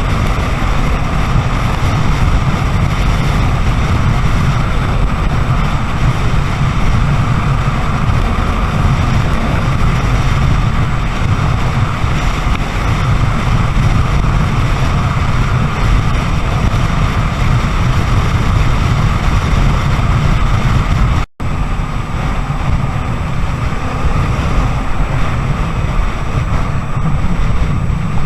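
Honda Tornado XR250 motorcycle being ridden: heavy wind rush on the microphone over the steady running of its single-cylinder engine and road noise. The sound cuts out for an instant about 21 seconds in.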